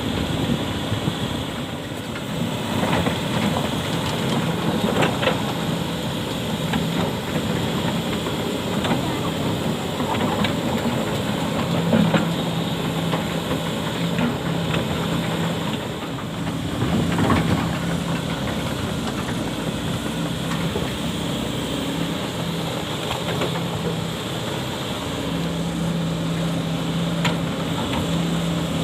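Sany hydraulic excavator's diesel engine running steadily under load, its hum coming and going, with the bucket scraping and knocking against hard rock now and then.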